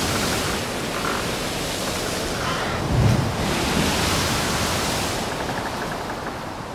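A loud rushing noise that surges twice, each surge opening with a low thump, then fades away near the end.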